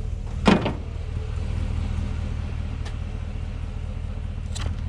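A vehicle engine idling steadily with a low hum, broken by a loud sharp knock about half a second in and two fainter clicks later on.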